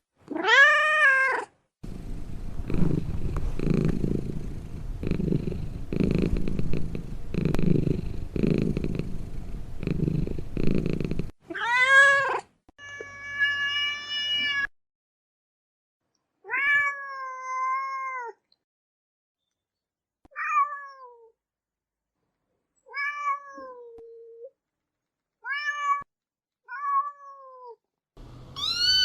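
Cat sounds one after another. A meow opens, followed by about ten seconds of a low, pulsing rumble. Then come a series of high-pitched kitten mews, most short and arching, one a longer steady cry.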